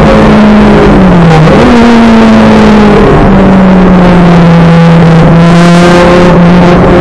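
Race car engine running hard, heard from inside the cabin, loud and constant over road and wind noise. Its note dips briefly about a second in, then drops lower about three seconds in and holds steady.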